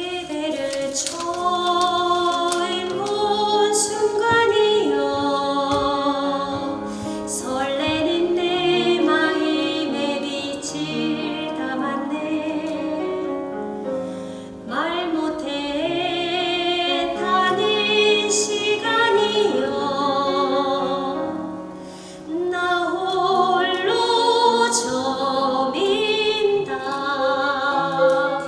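Music: a singer in a classical, operatic style with strong vibrato, in long phrases with two short breaks.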